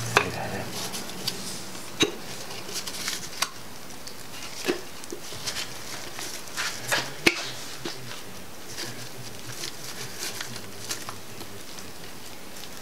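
Scattered light metallic clicks and knocks from a connecting rod cap being worked by hand on the crankshaft journal of an LS 5.3L (LM7) engine, trying to free it. The sharpest knocks come about 2, 3.5 and 7 seconds in.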